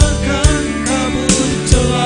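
Male vocal group singing a Christian worship song over a backing track with bass and a steady drum beat.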